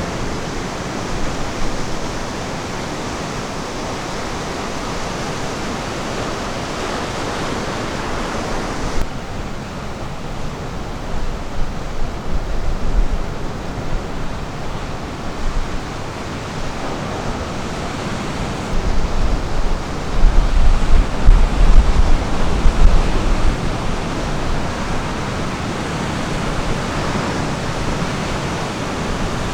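Ocean surf washing on a beach: a steady rush of noise. The hiss drops abruptly about nine seconds in, and there are louder bursts of low rumble around twelve seconds in and again from about twenty seconds.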